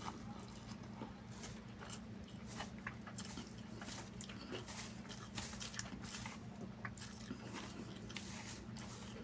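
Close chewing and mouth sounds of a person eating chicken biryani by hand: a string of soft, irregular wet clicks over a steady low hum.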